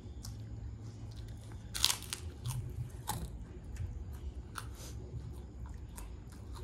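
Crisp kerupuk crackers being bitten and chewed close up: a series of separate crunches, the loudest about two seconds in.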